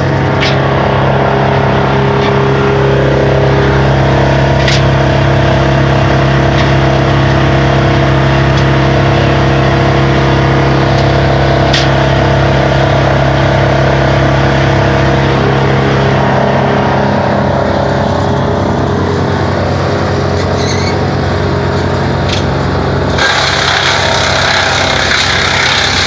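Vermeer BC1000 brush chipper running steadily at speed. About 23 seconds in, a loud rushing hiss joins the engine note as wood is chipped and the chips are blown out through the discharge chute.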